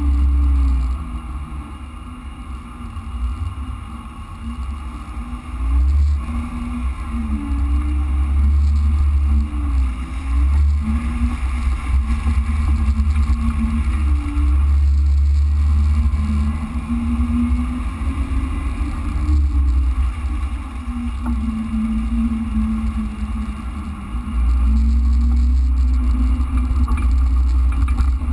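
Jeep Wrangler JK engine running as it drives a dirt trail, its pitch rising and falling with the throttle over a heavy low rumble. It eases off for a few seconds near the start, then pulls again.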